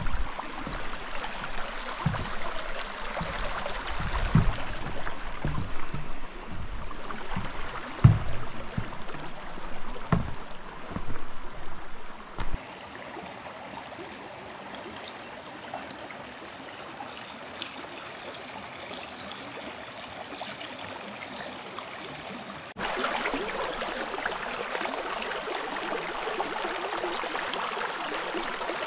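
A stream rushing over rocks, a steady wash of water sound. For about the first twelve seconds irregular low thumps sit on top of it; the water drops quieter around twelve seconds in and gets louder again with about six seconds left.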